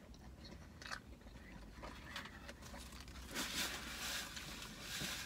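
Quiet chewing and biting of fast food, with faint scattered crunches, then a stretch of rustling from about three seconds in.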